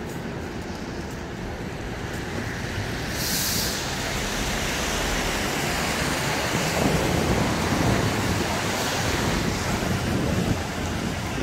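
Battery-electric city bus passing close on a wet, slushy street: tyre hiss on the wet road over traffic rumble, growing louder as it goes by. A short, sharp hiss of air about three seconds in.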